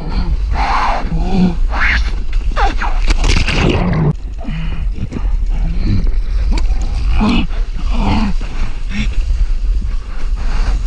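Surfboard paddling: hands splashing into the sea in uneven strokes about once a second, over a steady low rumble of water against the action camera.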